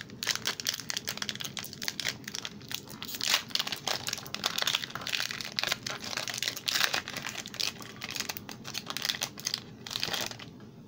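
Foil wrapper of a Pokémon card booster pack crinkling as it is handled and torn open by hand: a dense, irregular run of crackles that stops shortly before the end.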